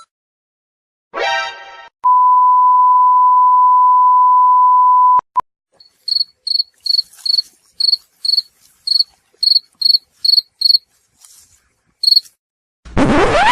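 A string of stock sound effects played one after another: a short ringing chime, then a steady beep of about three seconds like a censor bleep, two clicks, several seconds of cricket chirping, and a rising sweep near the end.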